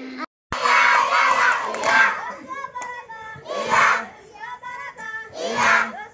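A group of children shouting together, their massed voices rising to a loud peak about every two seconds, like a chant.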